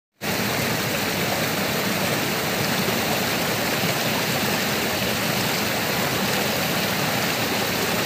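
Small rocky stream rushing and splashing over rocks close by, a steady, even flow of water.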